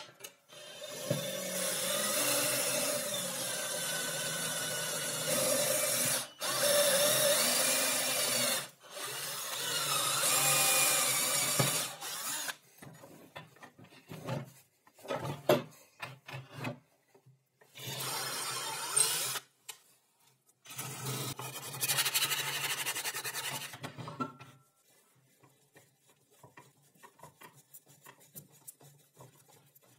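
A power tool working a workpiece in several separate runs of a few seconds each, with abrupt starts and stops. It goes quiet about 24 seconds in, leaving faint scattered handling ticks.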